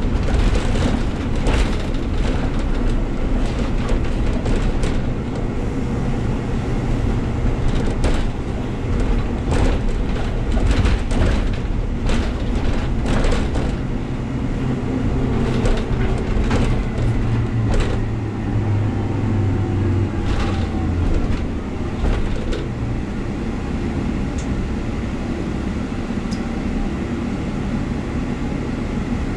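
Ride noise inside an articulated city bus on the move: a steady rumble of engine and road, with frequent rattles and clunks from the body and fittings. A deeper engine note swells for a few seconds past the middle.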